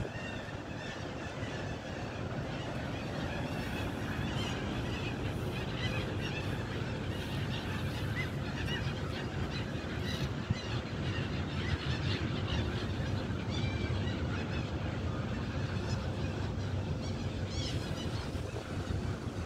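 Water birds calling over and over in short calls, over a steady low background rumble.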